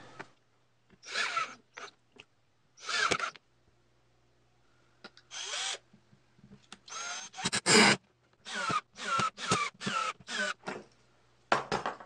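Cordless drill driving screws into wood in a series of short trigger bursts, each a brief whine of the motor. The loudest comes about eight seconds in, with a quick run of bursts after it.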